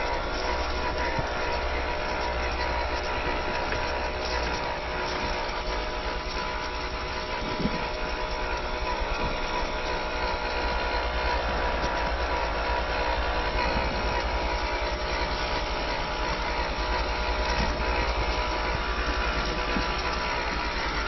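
Small electric motor and gearbox of a WPL C74-1 RC Suzuki Jimny model running steadily with a whine.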